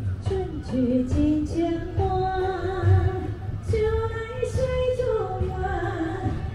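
A woman singing a slow melody with long held, wavering notes over backing music.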